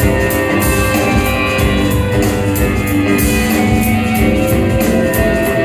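Instrumental passage of a rock band's song: guitar and drum kit playing over a steady beat, with no vocals.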